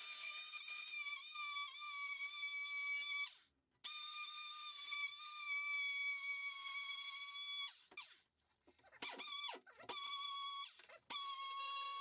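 Background music: a high, held melody line with a slight waver, cutting out briefly twice and resuming.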